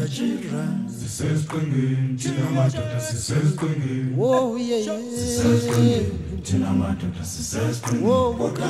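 A cappella vocal music: several voices singing together in harmony, with one note held for a couple of seconds in the middle.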